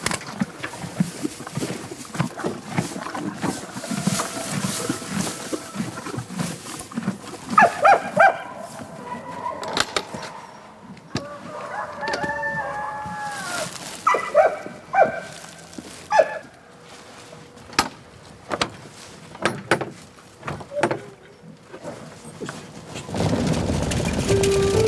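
Chickens calling: a rooster crows once midway, among short squawks and clucks, with scattered knocks. Music starts near the end.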